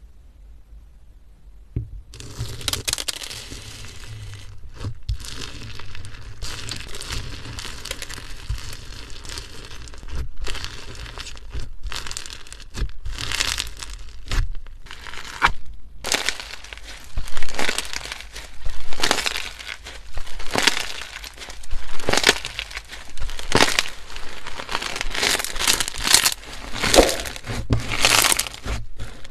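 Slime being squeezed and pressed by hand, making crackling, crinkly squishes. It starts about two seconds in as a steady crackle, and from about halfway it becomes louder rhythmic squishes of roughly one a second.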